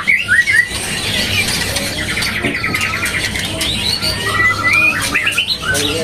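Caged male white-rumped shamas (murai batu) singing: varied whistled phrases with rising and falling notes and a fast trill.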